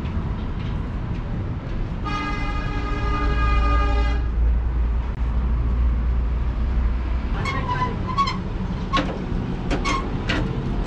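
A vehicle horn sounds once for about two seconds over a steady low rumble of traffic. From a few seconds before the end, a string of sharp metallic clicks and knocks comes from a hand tool working on an old truck radiator.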